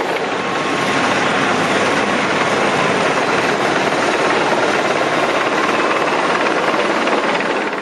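Combine harvester running steadily at work: a loud, even machinery noise with no change in pitch.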